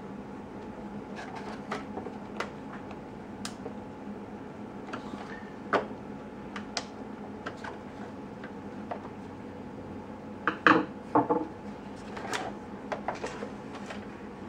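Scattered sharp clicks and knocks of small plastic parts and tools being handled while the remote-control toy truck is reassembled, with a quick cluster of louder knocks about ten and a half seconds in. A steady hum runs underneath.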